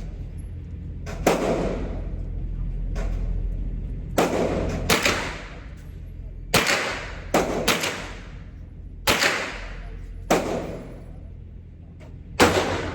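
Glock 19 9mm pistol firing about nine shots at an uneven pace, some in quick pairs, each sharp crack followed by a short reverberant tail.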